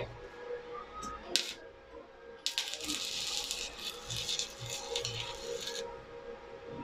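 Stick-welding arc from a Daiden inverter welder at 70 amps with a 6013 rod on thin steel. A sharp knock about a second and a half in is followed, a second later, by the arc crackling and sizzling for about three seconds before it cuts off.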